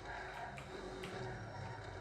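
Racing video game audio: a car engine running under background music, with a couple of sharp clicks.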